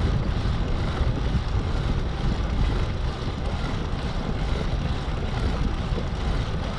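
Wind buffeting the microphone: a steady, rumbling noise without a break.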